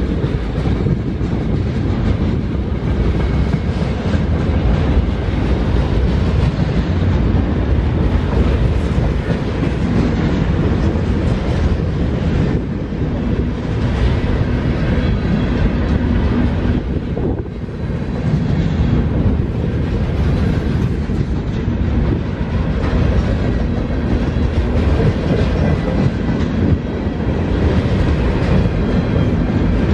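Freight train of empty centerbeam flatcars rolling past, a steady noise of steel wheels running on the rails.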